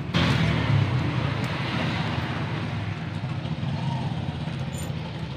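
Vehicle noise from outside: a rushing sound that comes in suddenly at the start and fades away over about three seconds, over a steady low hum.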